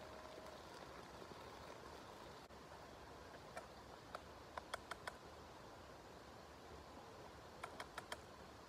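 Near silence with a faint steady hiss, broken by a few sharp light clicks: a run of about six halfway through and a quick group of three or four near the end.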